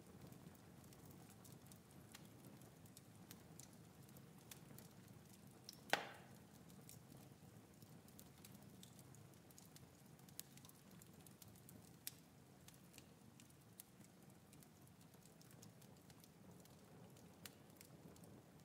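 Near silence: faint low background ambience with scattered small ticks, a single sharp knock about six seconds in and a lighter one near twelve seconds.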